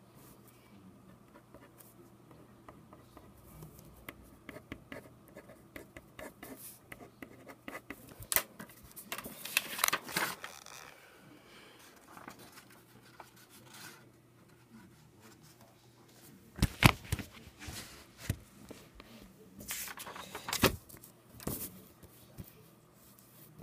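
Pencil scratching on paper in quick short strokes, then several loud rustling bursts as the sheet of paper is handled and moved about.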